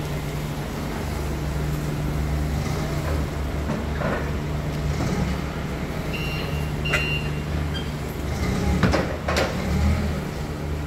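Forklift engine running steadily beside a truck while pallets of bottle crates are loaded, with several knocks and clanks from the load and the forks. A few short high beeps, typical of the forklift's warning beeper, sound a little past the middle.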